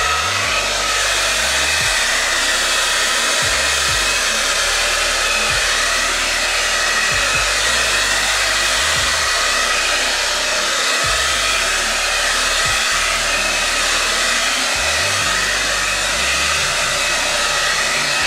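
Handheld hair dryer running steadily, blowing air with a constant whine over the rush of air.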